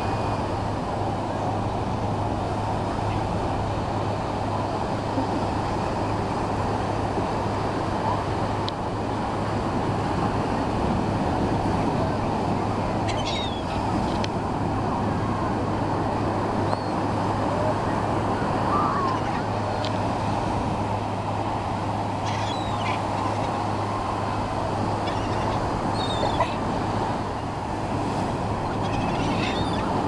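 Steady wash of ocean surf, with laughing gulls giving short, scattered calls every few seconds, most of them in the second half.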